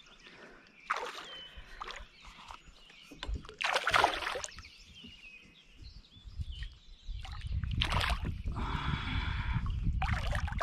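Water splashing and sloshing around a plastic kayak while a hooked bass is fought to the side of the boat, with scattered knocks, the loudest about four seconds in. From about seven seconds in there is a steady low rushing rumble, and the fish splashes hard at the surface right at the end.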